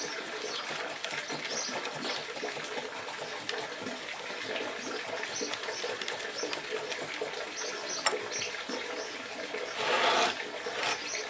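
Steady running water from a garden pond's stream, with faint scratchy ticks of a wooden chopstick working grainy bonsai substrate into a clay pot. A short louder noise comes about ten seconds in.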